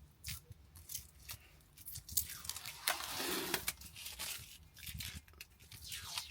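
Plastic wrapping being pulled and torn off a new ceramic toilet bowl: crinkling and tearing with scattered sharp crackles, loudest in a long rustle about three seconds in.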